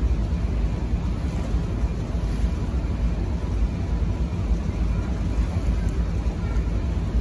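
Steady low rumble of a harbour ferry under way, its engine running, with wind on the microphone.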